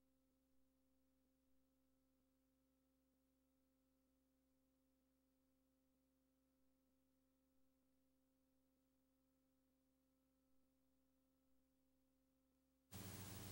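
Near silence: a faint steady electrical hum. Near the end, a louder steady hiss with a low hum starts abruptly.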